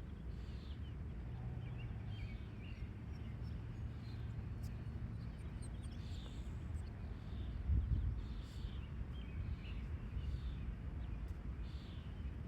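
A small bird chirping over and over, short high calls about once a second, over a steady low rumble outdoors. One dull thump sounds about eight seconds in.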